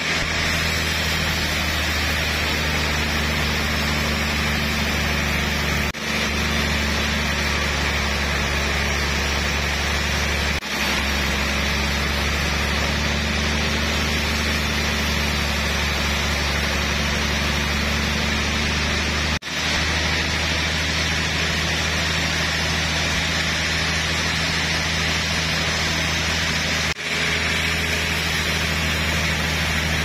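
Large band sawmill running, its blade sawing a trembesi (rain tree) log lengthwise into a slab: a steady machine noise with a low hum under it, briefly cut off four times.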